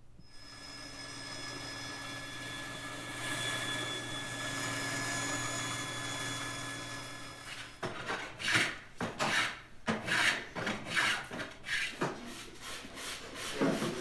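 A steady hum with several fixed tones for about the first eight seconds. Then quick, rhythmic rasping strokes of a hand tool on wood, about two to three a second and speeding up: hand-working the wooden trim edges.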